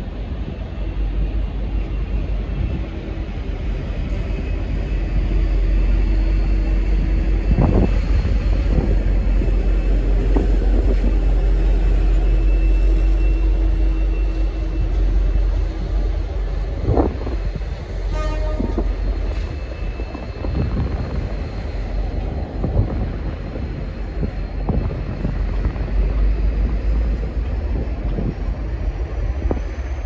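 V/Line N-class diesel locomotive running at a station: a loud, steady deep rumble with a held tone through the first half and a few knocks. There is a brief pitched toot about halfway through.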